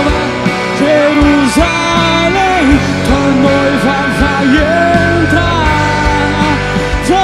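Live band playing a rock worship song: drum kit, electric guitars, bass and keyboards, with a gliding melody line over the chords.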